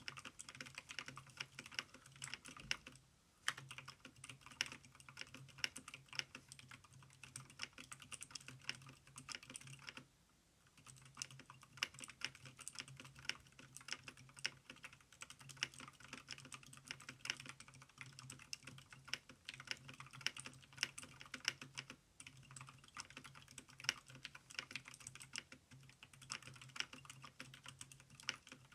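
Continuous typing on a mechanical keyboard with heavily over-lubricated blue (clicky) switches fitted with O-rings: a dense stream of key clicks and keystrokes. There are two short pauses, about three seconds in and about ten seconds in.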